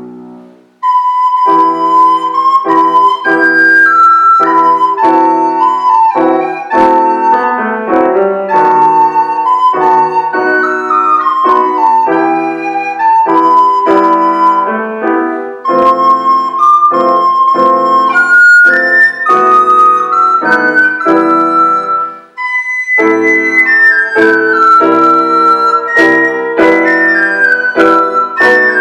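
Recorder playing a slow melody over piano accompaniment. The music pauses briefly about a second in and again about three-quarters of the way through before the phrase resumes.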